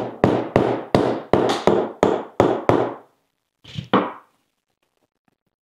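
Hammer blows on a steel punch set in a 3D-printed mold, knocking the mold halves apart: about nine quick, sharp strikes, roughly three a second, each ringing briefly, then two more knocks about a second later.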